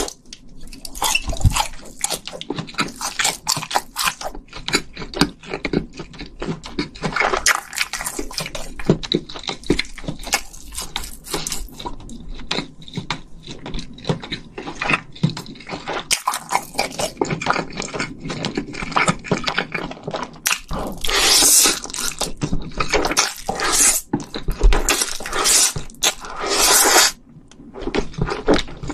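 Close-miked eating of spicy stir-fried fire noodles and a fish-cake bar: wet chewing and smacking clicks throughout, with longer hissing noodle slurps about two-thirds of the way in and again near the end.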